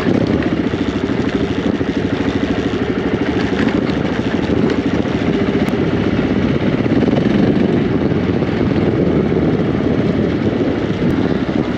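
Motorcycle engine running steadily while riding, a dense, even pulsing with a haze of road and wind noise over it.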